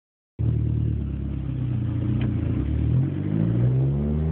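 2004 Dodge Neon SRT-4's turbocharged 2.4-litre four-cylinder idling, its idle beginning to climb about three seconds in. This is the weird, high idle that the owner suspects is caused by a vacuum leak.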